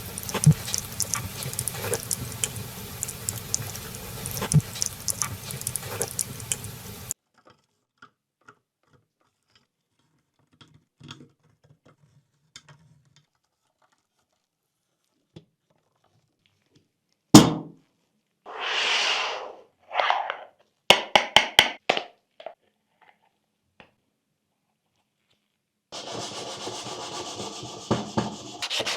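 Hand work on a small scale-model car. Rubbing and scraping for about the first seven seconds, then near quiet with a few faint ticks. A sharp snap comes about halfway, followed by a short hiss, a run of quick small clicks, and rubbing again near the end.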